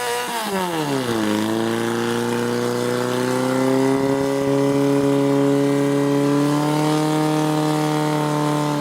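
An engine running at high revs. Its pitch swells and drops in the first second or so, then holds steady.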